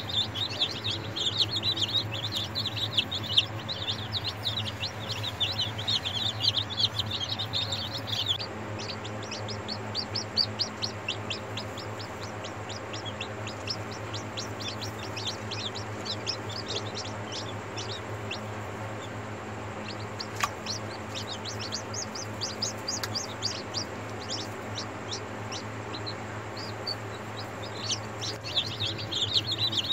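Newly hatched chicken chicks peeping, many rapid high chirps overlapping. The peeping thins to scattered chirps about 8 seconds in and turns dense again near the end, over a steady low hum.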